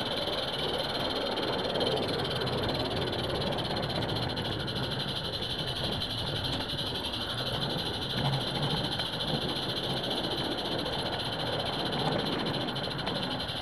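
Roundhouse Karen, a small gas-fired live-steam garden locomotive, running along the track: a steady hiss with fast, even rattling and a rumble from the wheels on the rails.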